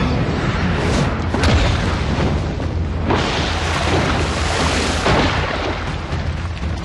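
Fight-scene sound effects: booming impacts about a second in, then a long rush of spraying water from about three seconds in, over background music.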